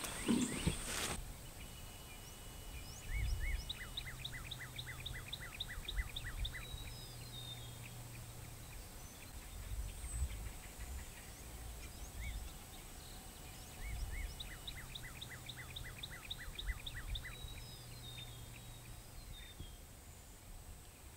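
Quiet outdoor ambience with a songbird singing twice, each song a quick run of falling notes, about ten seconds apart, over a faint low hum.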